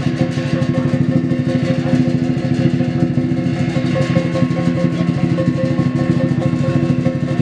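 Chinese lion dance drum beaten in a fast, continuous roll, with a steady ringing tone held above it.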